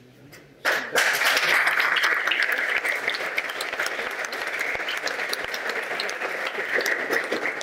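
Audience applause, breaking out suddenly under a second in and going on steadily as a dense clatter of many hands clapping.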